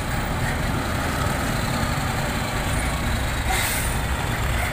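Heavy container tractor-trailer's diesel engine running as the truck rolls slowly past at close range. A short hiss comes about three and a half seconds in.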